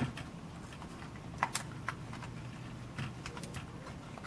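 Casing of a Sony Mavica CD digital camera clicking as it is pried apart by hand: irregular small sharp clicks, the loudest at the start and about a second and a half in.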